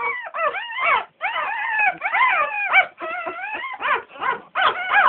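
A litter of American Staffordshire Terrier puppies whimpering and squealing, many high cries overlapping and rising and falling in pitch. After about three seconds the cries come as shorter separate yelps.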